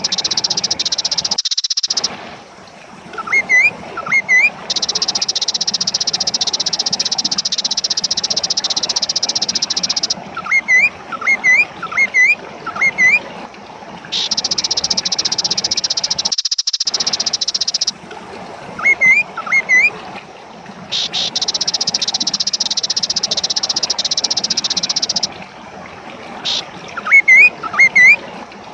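Kaso-kaso bird calling in four bouts, each a quick run of four or five short rising, hooked whistled notes. Behind it runs a steady high-pitched buzzing drone that stops and starts several times.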